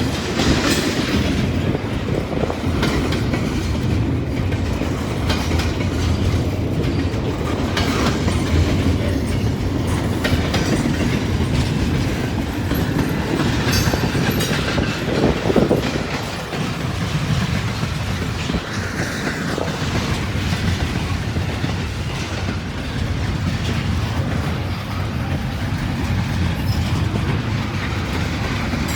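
Long freight train rolling past at steady speed: a continuous low rumble of cars, with wheels clicking over rail joints now and then.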